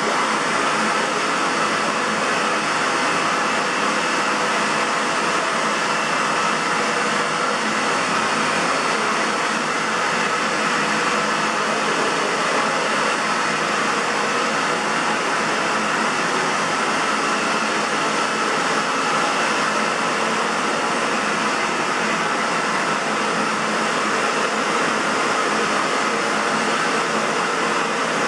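Aerus Lux 5500 (Electrolux C152C) canister vacuum cleaner running steadily: a loud, even rush of air with a faint steady whine, from a motor that the owner says has a bad bearing.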